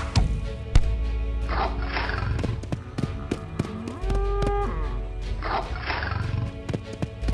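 Cartoon tiger roar sound effects over background music: two roars, about a second and a half in and again near six seconds. Two sharp hits come at the start, and a cow's moo about four seconds in.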